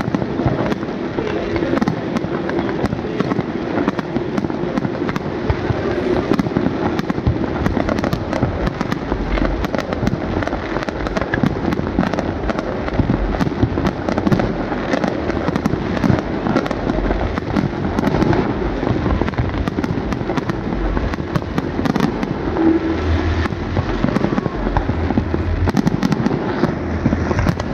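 Fireworks display: aerial shells bursting in a dense, continuous run of crackles and bangs, with heavier deep booms in the second half.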